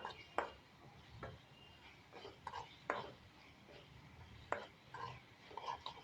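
A spoon stirring tomato and onion masala in a pan, with soft scraping and clatter and a few sharp knocks of the spoon against the pan.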